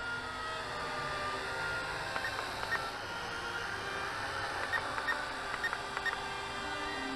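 Syma X8C quadcopter's four rotors whining as it hovers overhead, several motor tones shifting up and down with the throttle. A run of short ticks sounds around the middle.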